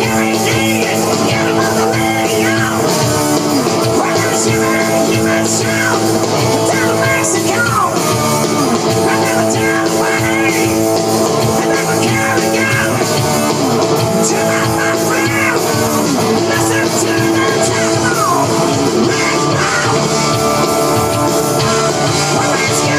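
Rock music with guitar, played steadily throughout.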